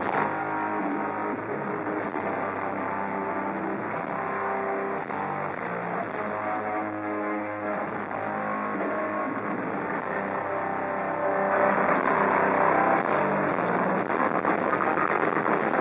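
Metal band playing live through a loud PA: distorted electric guitars holding sustained notes over the band, turning louder and denser about twelve seconds in.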